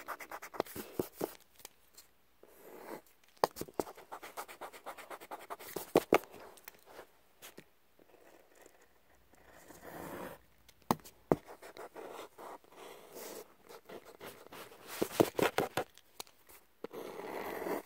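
Pencil scratching across paper in short, irregular strokes and ticks, with quick back-and-forth rubbing bouts near the end from erasing.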